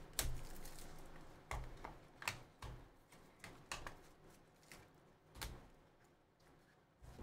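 Plastic wrap and cardboard of a sealed trading-card box being torn open and handled by hand: a string of sharp crinkles and clicks, about eight in all, scattered unevenly.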